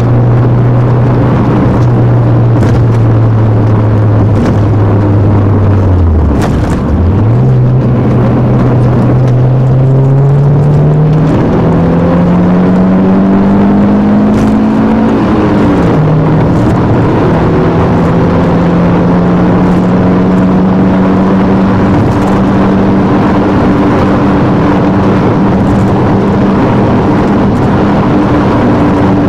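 Alfa Romeo 156 2.0 Twin Spark's four-cylinder engine pulling the car along, over steady road and tyre noise. The engine holds steady revs, dips sharply about six seconds in, then climbs steadily. Its pitch falls at a gear change about fifteen seconds in and rises slowly again after it.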